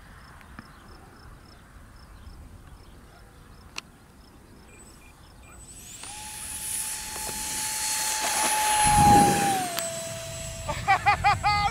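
Twin 50 mm 12-blade electric ducted fans of an RC A-10 Warthog jet on 4S power, spooling up for takeoff: after about six seconds of quiet, a steady high whine comes in rising, grows louder as the jet rolls and lifts off, then settles to a lower steady pitch just before ten seconds as it climbs away.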